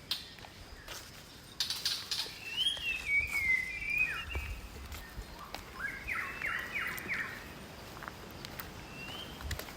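Forest birds calling: a warbled, gliding whistle about three seconds in, then a quick run of falling, chattering notes in the middle, with faint scattered clicks.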